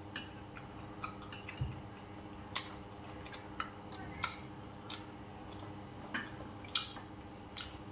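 Chopsticks and a metal spoon tapping and scraping against ceramic plates and bowls while eating: scattered light clicks, roughly one or two a second, over a faint steady hum.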